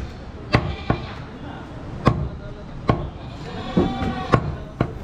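Heavy butcher's knife chopping goat meat on a thick wooden log block: about six sharp chops at uneven intervals, the blade going through the meat and striking the wood.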